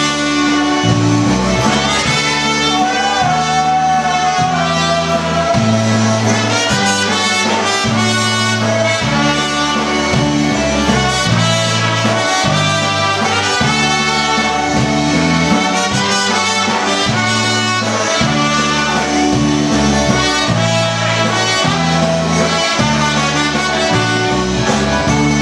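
Live Polish-style polka band playing a waltz, with horns carrying the melody over a steady bass line in three-four time.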